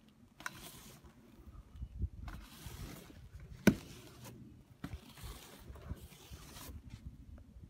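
Snow being swept across a car windshield in several swishing strokes, each about a second long, with one sharp knock about halfway through.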